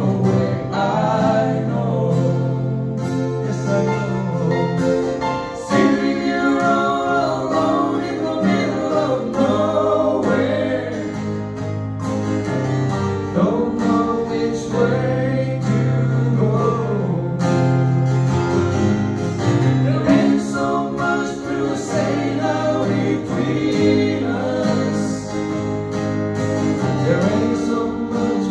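Live acoustic band song: acoustic guitars strummed over bass and keyboard, with several voices singing together.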